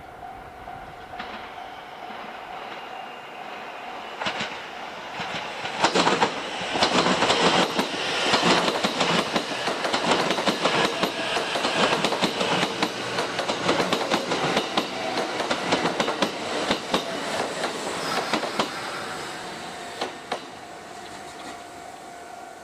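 Electric train running through the station: wheels clicking over rail joints and points, building up, loudest through the middle, then fading away.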